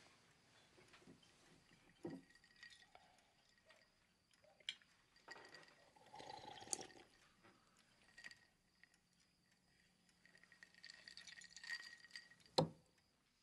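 Quiet dinner-table sounds: faint clinks of glassware, a sip of water from a glass about six seconds in, and one sharp clink near the end.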